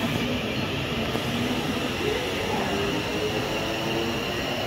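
Class 701 Aventra electric multiple unit pulling away from a station, with its wheels running on the rails and its electric traction motors whining. The whine climbs in pitch about halfway through as the train gathers speed.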